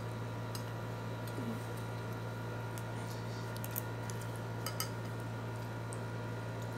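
Quiet room tone: a steady low hum with a few faint, soft clicks scattered through it.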